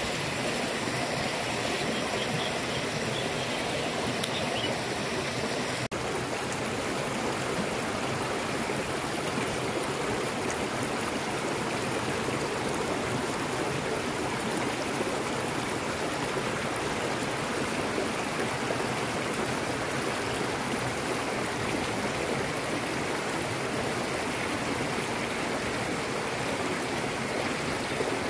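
Shallow river running over rocks and stones, a steady rushing babble that continues through the whole stretch, with a brief dip about six seconds in.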